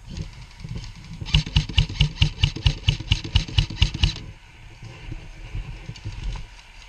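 Airsoft rifle fire: a rapid string of about sixteen sharp shots, roughly six a second, starting about a second in and stopping after nearly three seconds.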